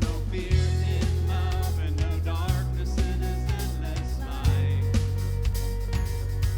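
Band music with a steady drum beat, a bass line that changes note every couple of seconds, and a melody line above it.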